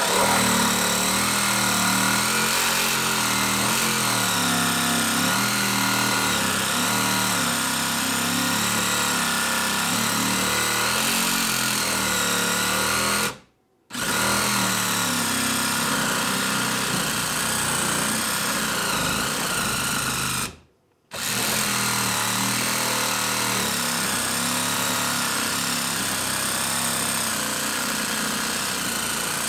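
DeWalt Atomic DCS369 20V compact cordless reciprocating saw with a 6-inch Avanti Pro blade, cutting slowly through a 2x4 on a 1.5 Ah battery; its pitch wavers as it works through the wood. It cuts out abruptly twice for under a second, once about halfway through and again about two-thirds of the way through, then starts again.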